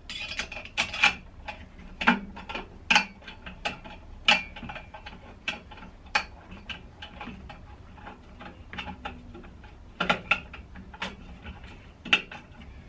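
Metal clicks and clinks at irregular intervals as steel cap screws and a sliding nut are fitted into the slot of an aluminium extrusion profile and turned in with a hand driver, with fainter ticks between the louder clicks.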